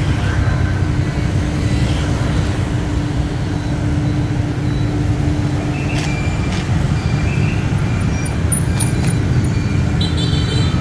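Busy city road traffic passing close by, a continuous rumble of engines with a steady hum for the first several seconds. There are a few short high beeps around the middle and a brief high-pitched tone near the end.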